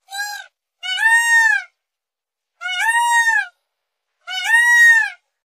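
Indian peafowl (peacock) calling: four loud calls in a row, the first one short, each rising and then dropping slightly in pitch at its end.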